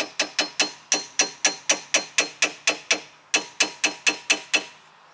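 A hammer lightly tapping a replacement front brake caliper on a 2000 Nissan Maxima: sharp, ringing metal taps about four a second, with a short pause about three seconds in. The tapping shakes trapped air bubbles loose inside the caliper so they float up and out of the open bleeder during a gravity bleed.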